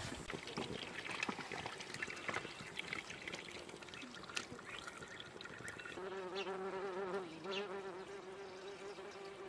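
Water poured from a kettle into a cooking pot, splashing and trickling. From about six seconds in, a flying insect buzzes steadily close by, its pitch wavering slightly.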